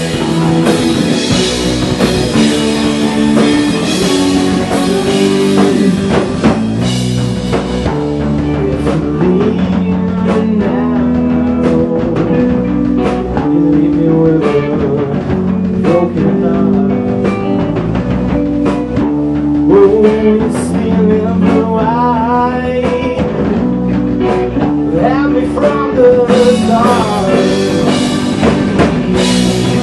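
Indie rock band playing live in a small rehearsal room: electric guitar, bass guitar, drum kit and a male lead vocal. The full band plays densely at first, thins out to a sparser section with separate drum hits about eight seconds in, and comes back in full near the end.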